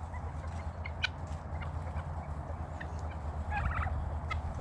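A tom turkey gobbles once, a short rapid warble about three and a half seconds in, over a steady low hum.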